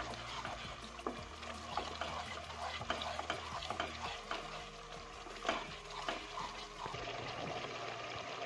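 Wooden spatula stirring and scraping a thick onion, yogurt and ground-spice masala that sizzles steadily in oil in a non-stick pan, with frequent short scrapes. The masala is at the bhuna stage, being sautéed after the dry spices went in.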